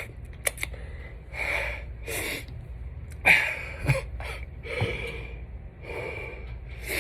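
A man breathing heavily, a string of loud breaths about a second apart, after eating wings with extremely hot sauce; he puts the heavy breathing down to having quit smoking, not the sauce.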